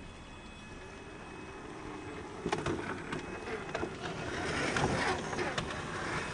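Radio-controlled Traxxas TRX4 crawler truck driving over ice and rock: a steady run of small-motor and tyre noise, then a series of sharp knocks and clatter from the tyres and chassis on the ice from about halfway, growing louder toward the end.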